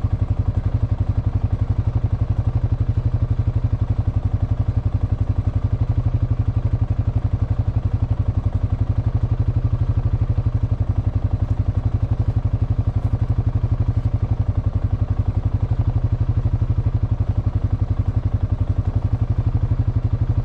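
A Honda Foreman ATV's single-cylinder four-stroke engine idling steadily while the machine stands still, with an even beat of about ten firing pulses a second.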